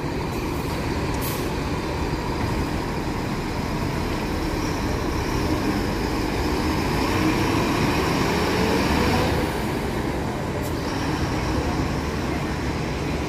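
Comil coach's diesel engine pulling away and accelerating, its note rising for a few seconds and dropping back about nine seconds in, as at a gear change.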